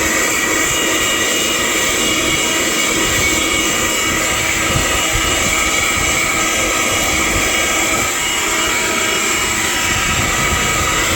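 Handheld 12 V car vacuum cleaner running continuously: a steady motor whine with several fixed tones over airflow hiss.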